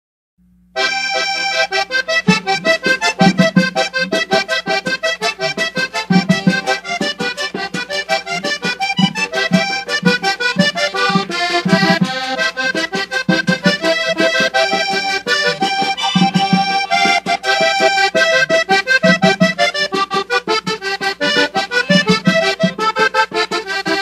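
Instrumental vallenato: a diatonic button accordion plays a quick melody over a steady, evenly repeating low pulse, starting just under a second in.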